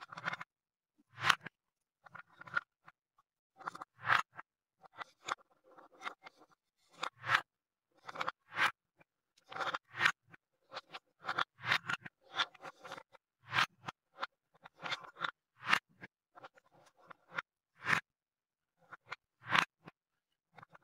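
Painted wooden balls clacking against a wooden spoon, wooden cups and a wooden bowl as they are scooped up and dropped in: irregular sharp knocks, often in quick pairs or clusters, with the spoon scraping between them.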